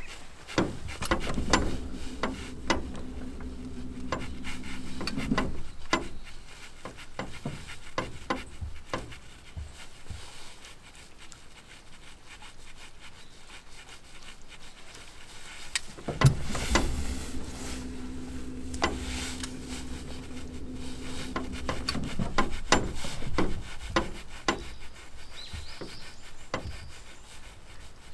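Fishing reel cranked in two stretches of about four to six seconds each, a steady whirring hum that stops abruptly each time. Scattered clicks and rubbing from handling the rod and tackle come in between.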